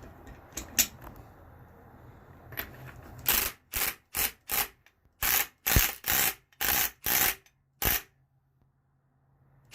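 Impact wrench driving the centre bolt of a flywheel puller on a Suzuki GSX-R600 flywheel, in about ten short rattling bursts over some five seconds. The flywheel stays stuck on the crankshaft.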